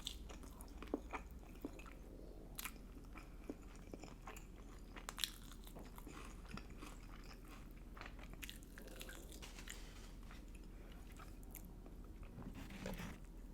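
Close-miked eating: crisp, crunchy bites with sharp crackles in the first half, then softer, wetter chewing.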